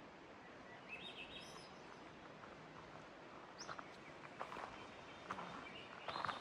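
A bird gives a few short rising chirps about a second in, then footsteps crunch irregularly on a trail from about halfway, getting louder near the end, over a faint steady hiss.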